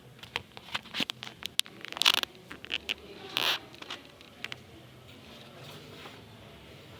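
A quick run of clicks, clinks and short scrapes of tools and metal parts being handled, with the loudest scrapes about two and three and a half seconds in; it stops after about four and a half seconds.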